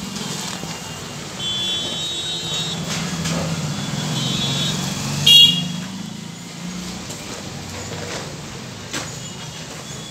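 Street traffic: a vehicle engine runs steadily underneath, while horns sound twice for about a second each and then give one short, loud toot a little after five seconds in.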